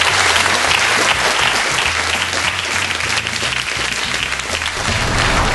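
Studio audience applauding steadily, with music playing underneath.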